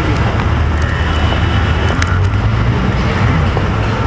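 Steady low rumble of city street traffic, with a single sharp click about two seconds in.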